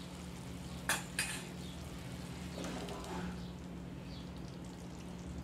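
Two quick metallic clinks about a second in, then ground spinach paste poured from a steel bowl into the frying masala in a pan, with a faint sizzle.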